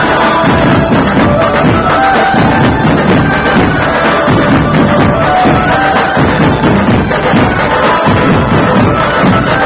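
A Dhumal band playing loud music through its sound system during a sound check: a heavy, dense drum beat under a melody of held notes.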